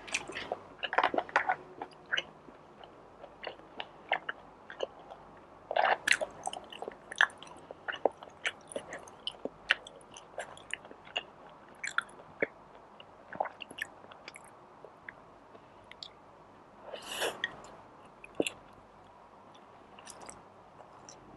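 A person chewing and biting food, with irregular crisp crunches and wet mouth sounds, heaviest about a second in and again about six seconds in, and a longer smeared mouth noise about seventeen seconds in.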